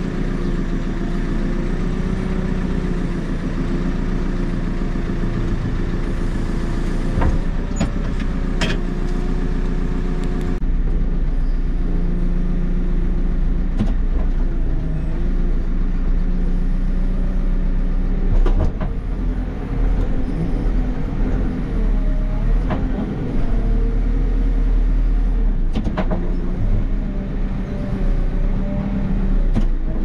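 Diesel engine of a JCB 3CX backhoe loader running steadily, its pitch rising and falling as it works, with a few sharp knocks now and then.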